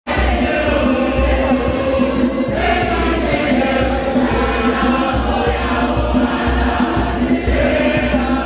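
Many voices singing a Catholic hymn together in chorus, holding long notes over a steady beat.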